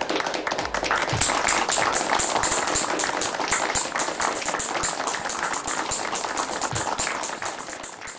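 Many people clapping their hands together in steady applause, which fades away near the end.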